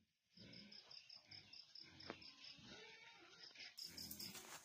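Cricket chirping faintly in a fast, even pulse of about seven chirps a second, with a single click about two seconds in.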